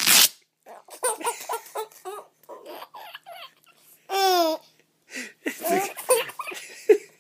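Velcro strap ripped open once, a short tearing noise at the start, followed by a six-month-old baby laughing in bursts, with a high squealing laugh about four seconds in.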